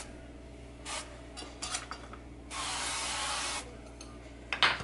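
Chosen Foods coconut oil spray can spritzing oil onto sliced onions and mushrooms: a short hiss about a second in, then a longer hiss of about a second in the middle. A few light clicks near the end.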